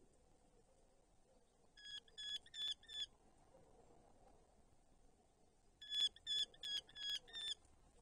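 Eurasian hobby calling, a female calling her mate to bring prey to the nest: two runs of short, pitched notes, four or five in each, the first about two seconds in and the second about six seconds in.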